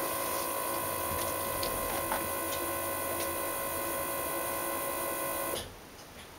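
A BMW E36's electric in-tank fuel pump runs steadily with a whine while holding fuel pressure for a pressure test. About five and a half seconds in it is switched off and the sound cuts out suddenly.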